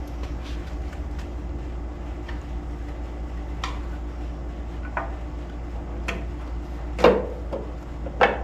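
Scattered clicks and knocks of engine parts being handled during valve-cover fitting, the loudest about seven seconds in and another near the end, over a steady low hum.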